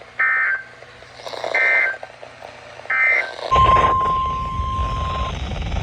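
Emergency Alert System header: three short, buzzy bursts of SAME digital data about a second and a half apart, followed by the single steady NOAA Weather Radio attention tone for about two seconds. A low rumbling noise comes in with the tone.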